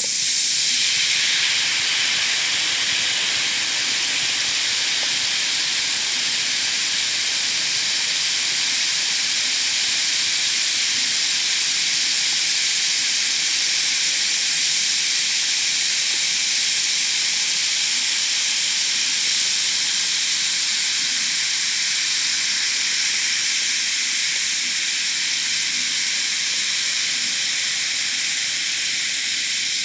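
Effervescent tablet dissolving in water, fizzing with a loud, steady hiss that sits mostly in the high range. It eases slightly near the end.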